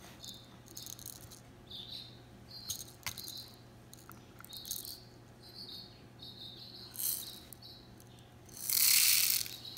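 Sugar pearls rattling in a small plastic measuring cup in short shakes, then pouring into a plastic mixing bowl in one longer, louder rush near the end. Short high chirps recur in the background.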